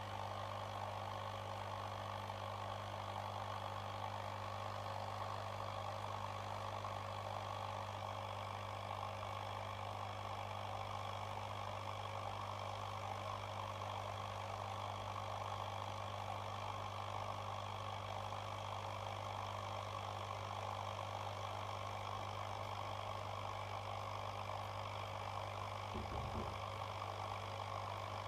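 Steady electrical hum with a constant hiss, from a small electric appliance running without change. There is a brief low bump near the end.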